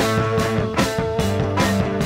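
Background rock music with a steady beat of about two beats a second over a moving bass line.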